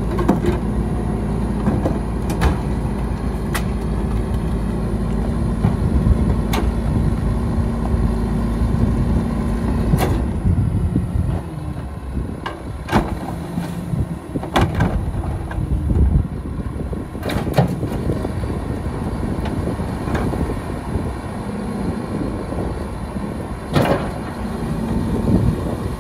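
Rear loader garbage truck running as wheeled plastic trash carts are tipped into its hopper, with a sharp clank every few seconds as a cart knocks against the hopper and tipper. A steady hum from the truck stops about ten seconds in.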